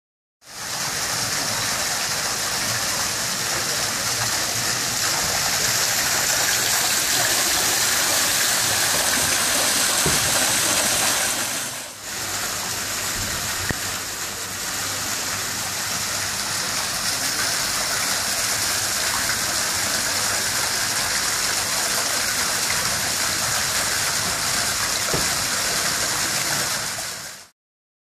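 Water rolling over the dished top edge of an artificial rock waterfall and falling into the pool below: a steady rushing hiss of falling water, briefly dropping in level about twelve seconds in.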